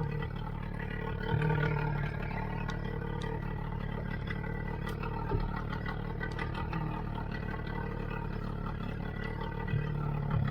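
A boat engine running steadily, a low hum with a few small clicks and knocks over it.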